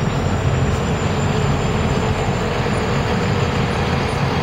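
City transit bus pulling away from a stop close by, its engine running loud and steady with a low rumble and a faint steady whine.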